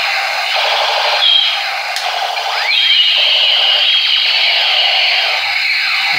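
Battery-powered toy gun playing its electronic sound effect through a small speaker: a shrill, looping warble with a held high tone and rapid falling pitch sweeps, with no bass.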